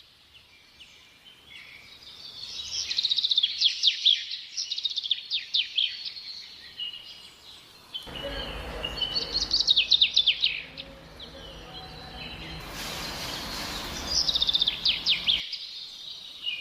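Birdsong: bouts of rapid, high chirps and trills. A noisy layer with a low hum and, later, a bright hiss comes in abruptly about eight seconds in and cuts off suddenly near the end.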